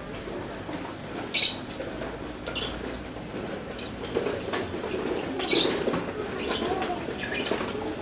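Fischer's lovebirds giving short, shrill, high-pitched chirps in scattered bursts every second or two, over a steady background hiss.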